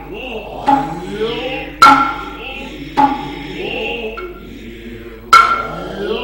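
Noh hayashi music: four sharp tsuzumi hand-drum strokes, each with a brief ringing tone, spaced unevenly about a second apart, with long, rising vocal calls and chanting between them.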